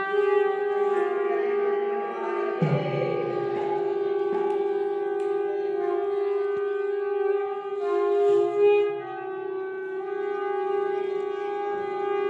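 A conch shell (shankh) blown in one long, steady, held note that wavers and dips briefly about eight seconds in. It is the call that opens the evening aarti.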